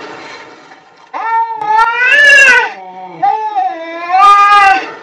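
Cats yowling at each other in a fight standoff. There are two long, wavering howls that rise and fall in pitch: the first starts about a second in and the second follows right after it.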